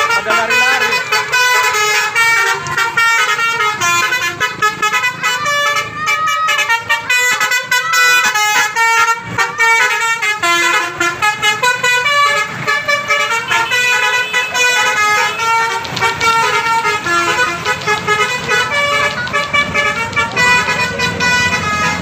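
Bus 'telolet' musical horn (Basuri multi-tone horn) playing a fast tune of short horn notes that jump from pitch to pitch.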